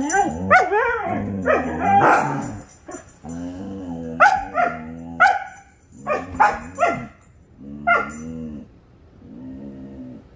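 Two Siberian huskies play-fighting and vocalizing: drawn-out grumbling growls broken by sharp yips and barks. It fades to a lower, quieter grumble near the end.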